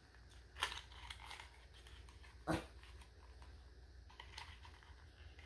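Faint clicks and taps of a small plastic cosmetics package being handled and opened to get at a mini brow pencil. One sharper click comes about two and a half seconds in.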